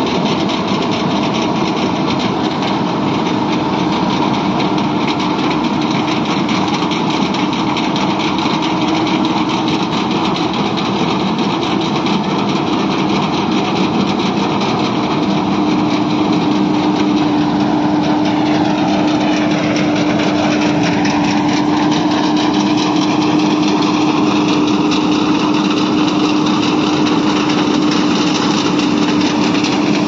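John Deere W70 combine harvester with its 100 hp engine running steadily under load while harvesting rice: a continuous mechanical drone with a steady hum. It gets a little louder and shifts in tone as the machine comes close, about halfway through.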